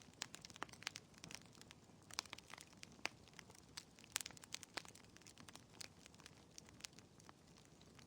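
Wood fire crackling in a fireplace: irregular sharp pops and snaps of burning logs over a soft low hiss of flames.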